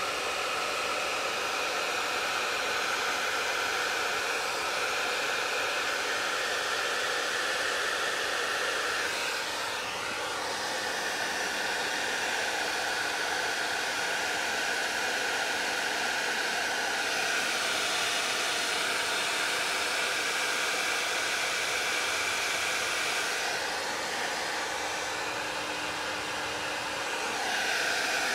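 Heavy-duty handheld hair dryer blowing on high heat, a steady rush of air with a whine that shifts in pitch several times as it is moved over the canvas.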